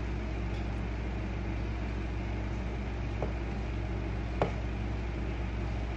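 Steady low room hum, like a running appliance or air conditioner, with two short light clicks: a faint one about three seconds in and a sharper one a little past four seconds.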